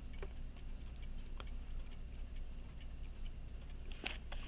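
A wound pocket watch movement ticking quietly, its balance running with a rapid, even tick, and a louder click about four seconds in.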